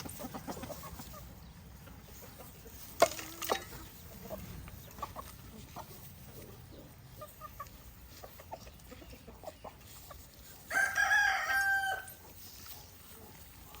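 A rooster crows once near the end, a call of a little over a second, over scattered clucking from chickens. A sharp knock comes about three seconds in.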